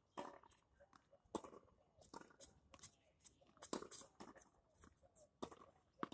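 Faint tennis rally on a hard court: a string of irregular sharp knocks from the ball striking the racket and bouncing, with scuffing footsteps in between.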